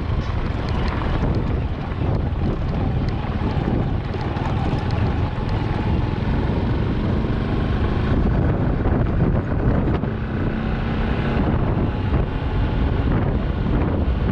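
Wind buffeting the microphone over the steady rumble of a vehicle travelling along a road, with a faint steady hum rising out of it twice in the second half.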